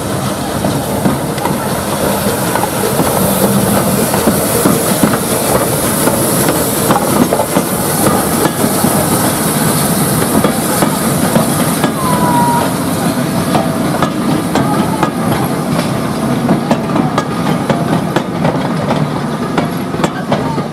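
Rebuilt Bulleid West Country class steam locomotive 34027 'Taw Valley' and its coaches moving past, with steam hissing from the cylinders for about the first half and wheels clicking over the rail joints throughout. A brief wheel squeal is heard about twelve seconds in.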